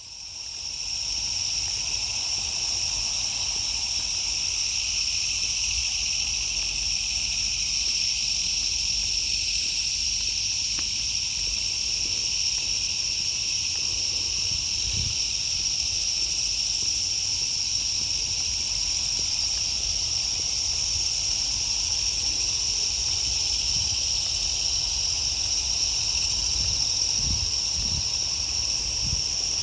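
Chorus of night insects trilling: a steady, unbroken high-pitched ringing that fades in over about the first second and then holds level.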